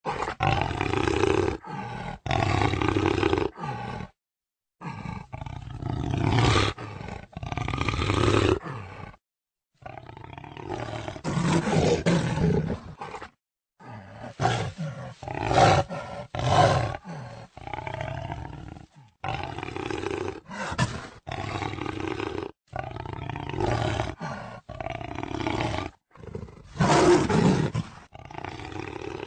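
Jaguar roaring and growling in a long run of hoarse calls, each a second or two long. Several sudden silent gaps break the run where the recording is cut.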